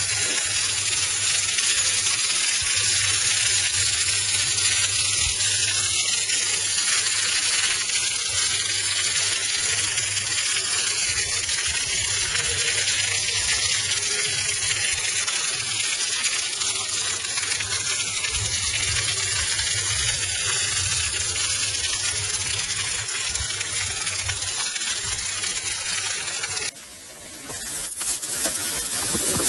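Steady sizzling and fine crackling of halved shrimp searing on a hot griddle plate. Near the end it drops off suddenly and a quieter sizzle comes in, building back up as chicken pieces cook over the grill flames.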